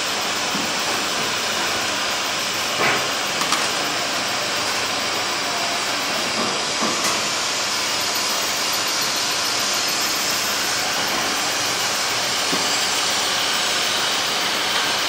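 Steady, loud hiss of running factory machinery, with a few light knocks in the first half as the auto loader's fittings are handled.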